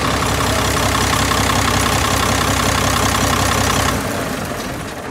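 Caterpillar C12 inline-six diesel truck engine idling steadily and running clean. Its sound fades down near the end.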